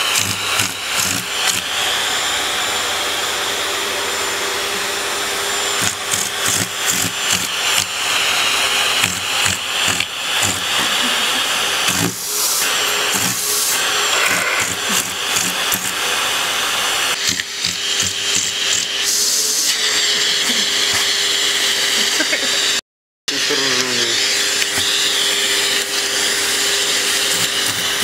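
Vacuum cleaner running with its nozzle held against a cat's paws and face, the suction noise shifting in tone now and then, with stretches of rapid rattling. It cuts out for a moment near the end.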